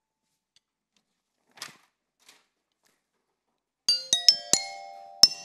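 Metallophone (glockenspiel-type metal bars) struck with wooden mallets: a faint tap about a second and a half in, then a quick run of about five notes near the end and one more after it, the notes ringing on.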